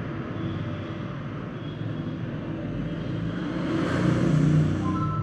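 Rumble of a passing vehicle, growing louder to a peak about four seconds in and then easing off.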